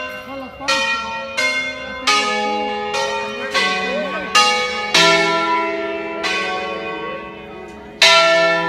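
Tuned ring of five church bells in E, cast by De Poli in 1949, rung by hand in concerto: single strokes on bells of different pitches, roughly one a second, each ringing on under the next to make a slow melody. The stroke near the end is the loudest.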